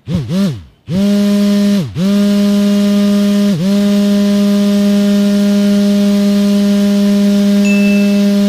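Small DC motor of a homemade fan on a toy tractor's trailer, switched on in two quick blips that spin up and die away, then running with a steady hum from about a second in. Its speed sags sharply about two seconds in and briefly again about three and a half seconds in, then holds steady.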